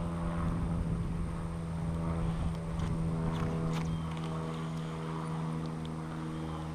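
A steady motor drone holding one pitch throughout, with a few faint clicks over it.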